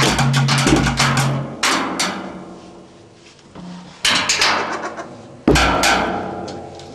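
Sticks beating a large plastic barrel and other makeshift percussion in a fast rhythm that stops about a second and a half in. Three single loud hits follow, spaced out, each left to ring and die away.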